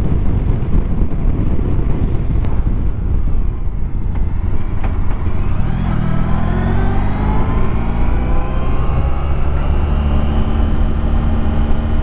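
Honda ST1100 motorcycle engine running under way, with wind and road noise. About five seconds in the engine note rises as the bike accelerates, then settles into a steady cruise.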